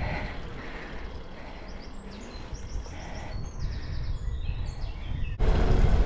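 Low wind and riding rumble on a bicycle-mounted action camera's microphone, with a bird singing short, repeated high falling notes through the middle. About five seconds in, a much louder steady rushing noise starts abruptly.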